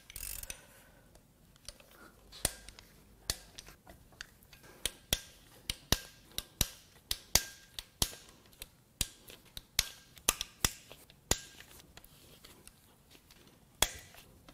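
A ratchet breaking the camshaft cap bolts of a Toyota 2AR-FE cam tower loose one after another: a string of about two dozen sharp, separate clicks, with a short pause before one last click near the end.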